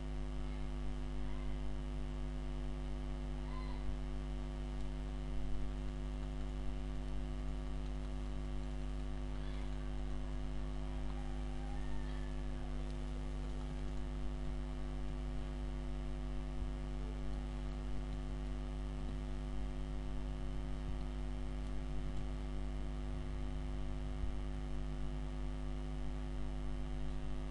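Steady electrical mains hum, a low buzz with a stack of evenly spaced overtones, with a few faint wavering sounds in the background.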